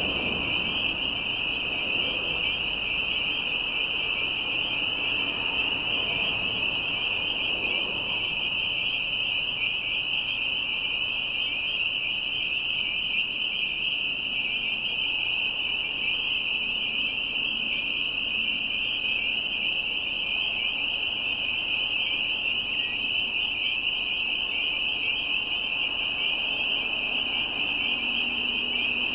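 A dense chorus of spring peepers: many high-pitched peeps overlapping into one steady, shrill ring.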